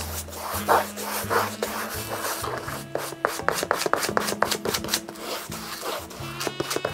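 A stiff brush scrubbing glue onto the back of a rubber half sole in quick, scratchy strokes, several a second.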